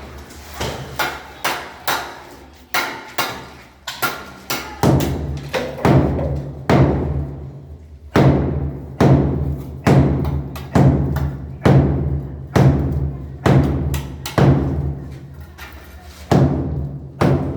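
Repeated heavy hammer blows breaking brick and concrete masonry, each a sharp knock with a short low ring. The strokes are irregular at first, then settle into a steady rhythm of about one a second, and slow again near the end.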